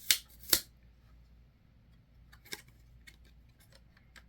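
Sharp clicks and taps of hard plastic calculator parts being handled: two clicks in quick succession, then a fainter tap about two and a half seconds in.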